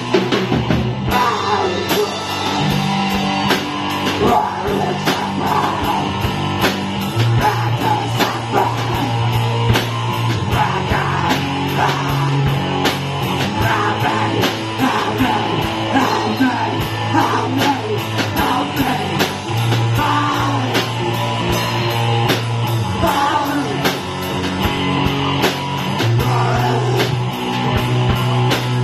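A live rock band playing: an electric guitar through an amplifier and a drum kit keeping a steady beat, with sustained low guitar notes that change every few seconds.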